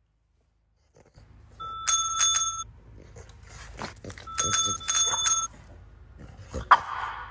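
A small metal bell rung in two quick bursts of several strikes each, a couple of seconds apart, with a sharp knock near the end.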